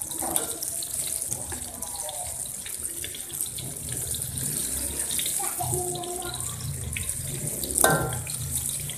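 Battered eggplant slices deep-frying in hot oil in a wok: a steady high sizzle, with a metal spatula stirring and scraping against the pan and a sharp knock just before the end.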